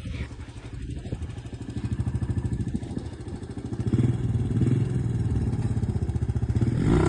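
Small off-road vehicle engine running and revving, its rapid firing pulses growing louder about two seconds in and again about four seconds in.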